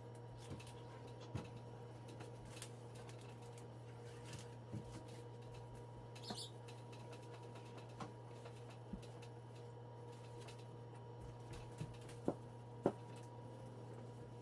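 Faint handling sounds of a microfiber cloth wiping a wooden china cabinet and its glass: scattered light taps and clicks over a steady low hum, with two sharper taps near the end.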